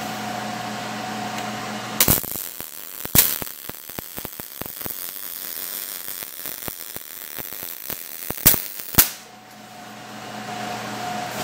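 MIG welder arc on zinc-coated galvanized 14-gauge sheet steel, .030 ER70S-6 wire under C-25 gas. The arc strikes with a loud crack about two seconds in and runs for about seven seconds as an irregular spattery crackle with sharp pops, then stops with two loud pops. A shop fan hums steadily before and after the weld.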